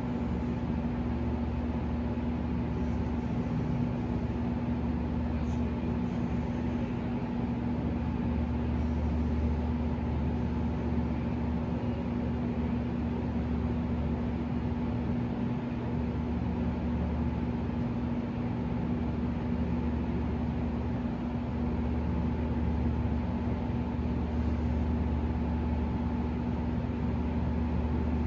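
Steady mechanical hum with a constant low tone, from a machine running without change.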